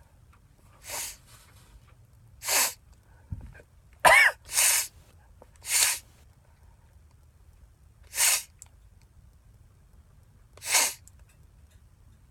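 A man sneezing, set off by snorted cayenne pepper: a run of seven short, sharp nasal bursts spaced one to two and a half seconds apart, the one about four seconds in voiced.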